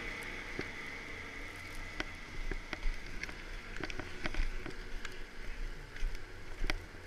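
Skis and poles clicking and scraping on packed snow as a skier moves about, a scatter of irregular sharp clicks that grows busier from about two seconds in, over a low, uneven rumble of wind on the microphone.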